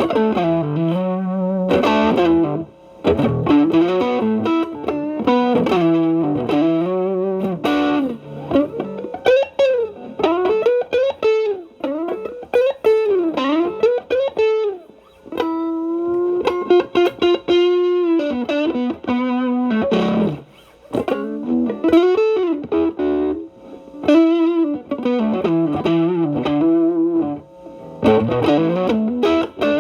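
Stratocaster electric guitar through an Xotic BB Plus preamp (channel B driving at low gain) into a Marshall Valvestate amp, with the guitar's volume rolled back so the overdrive cleans up. It plays single-note blues lines with string bends and vibrato, broken by short pauses.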